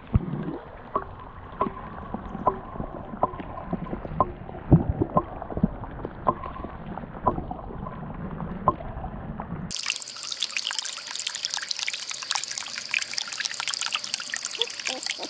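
Water trickling and dripping. The first two-thirds are muffled, with sharp drips or taps at a steady pace of about one every two-thirds of a second. About ten seconds in, the sound switches abruptly to a brighter, hissier trickle carrying a steady high tone.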